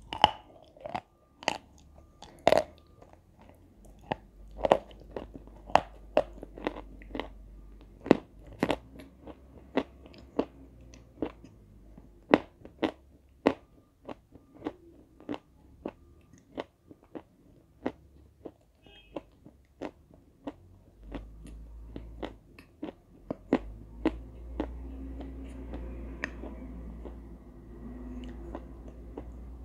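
Biting and chewing chunks of white chalk dipped in red clay paste: sharp, crisp crunches about one to two a second, close to the microphone. A low rumble rises in the background near the end.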